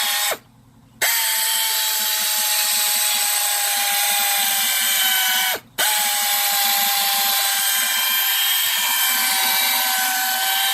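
Electric drill spinning a polishing pad on a headlight lens, a steady high whine. The trigger is let off twice, briefly about half a second in and again near the middle, and the tool winds down and spins back up each time.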